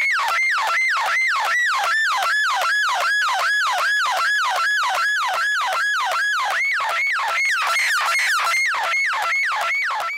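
Circuit-bent Yamaha PSS-30 toy keyboard electronics making a harsh, siren-like electronic zap. The same falling sweep repeats about three times a second, each one diving quickly from high to low.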